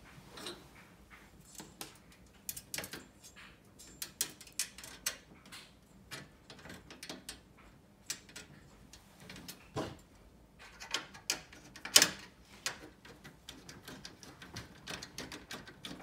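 Small metal clicks and taps of screws, washers and nuts being fitted by hand into a sheet-steel table frame, irregular throughout, with one sharper clink about three-quarters of the way through.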